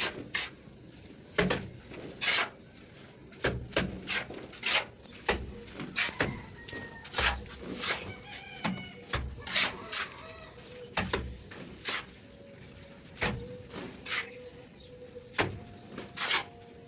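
Irregular slaps and scrapes of a steel trowel working cement-sand mortar onto a brick wall, a few strokes each second. Chickens cluck in the background.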